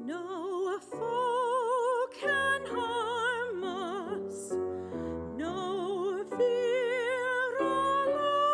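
A solo female voice singing in a trained classical style with wide vibrato, holding long notes over grand piano accompaniment. The voice enters right at the start after a brief hush.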